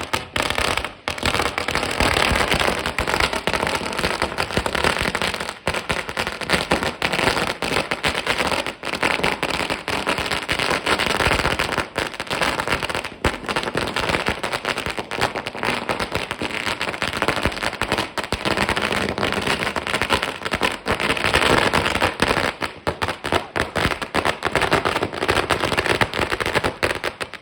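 Firecrackers going off in a rapid, unbroken string of bangs and crackles for nearly half a minute, then stopping suddenly.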